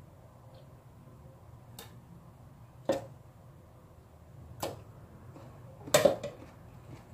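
A knife clinking and tapping on a ceramic plate while a steamed tomato is peeled and handled: a few separate sharp clinks, the loudest a double clink of crockery about six seconds in, over a faint low hum.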